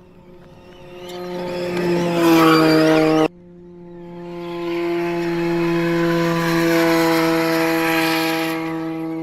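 Audi RS Q e-tron E2 rally car driving hard on a gravel track: a steady, high drone with a hiss of tyres and loose gravel that grows louder as the car approaches. The sound cuts off abruptly about three seconds in, then a second pass builds up and stays loud until the end.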